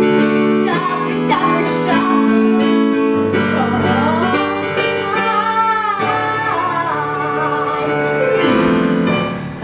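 Musical-theatre song finishing: a girl singing over piano accompaniment, with a long wavering sung note in the middle. The music stops just before the end.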